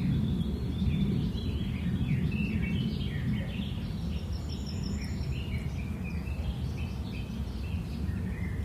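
Small birds chirping and twittering repeatedly, many short calls overlapping, over a steady low rumble of background noise.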